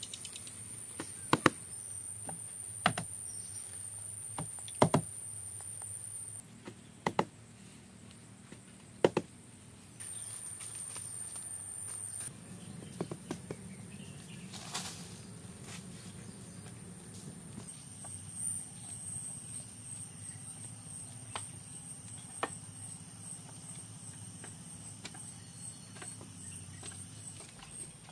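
Jungle ambience with a steady high insect drone, broken by a few sharp, short knocks in the first ten seconds and fainter ticks afterwards.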